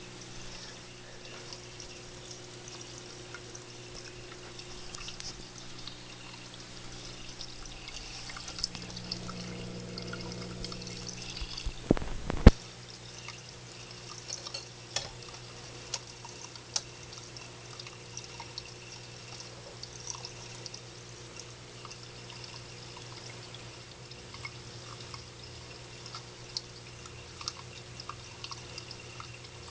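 Water from a homemade fountain pouring and splashing steadily, with scattered drips and a steady low hum underneath. A sharp knock about twelve seconds in is the loudest sound.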